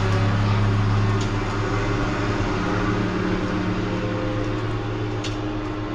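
A steady low mechanical hum made of several held tones, loudest in the first second, with a few faint clicks over it.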